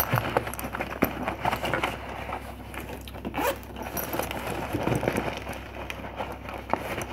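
Hands rummaging through a gear organizer pouch: fabric rustling and scraping, with irregular small clicks and knocks of items inside.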